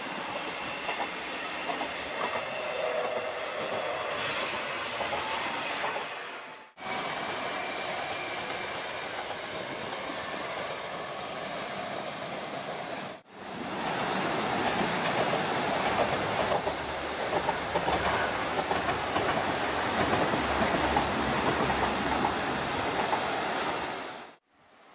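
Diesel train crossing a steel railway bridge: a steady rumble of engine and wheels with some clickety-clack. It cuts out abruptly twice and is loudest in the last part, fading out near the end.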